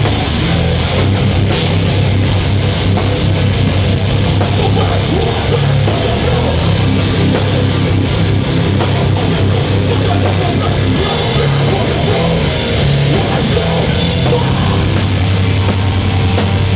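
A rock band playing live and loud: distorted electric guitar, bass and a drum kit in a heavy, steady passage.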